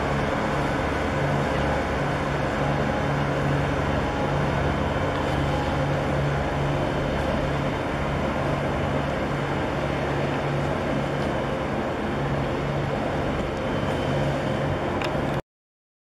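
A vessel's engine running as a steady rumble with a throbbing low hum, under a loud rush of wind and water noise. It cuts off suddenly near the end.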